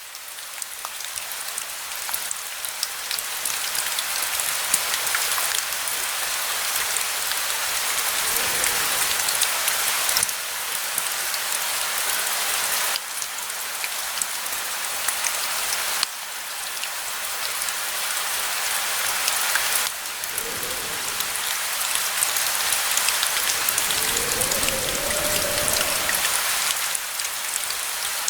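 Steady, dense rain pattering, fading in at the start, with the level stepping abruptly a few times. Three faint low rumbles come under the rain, around a third of the way in, about two-thirds in, and near the end.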